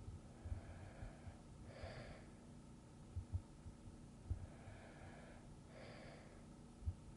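Slow, soft breathing of a sleeping person: two breath cycles about four seconds apart, each a longer faint draw followed by a short stronger puff of air. A few faint low thumps fall between the breaths.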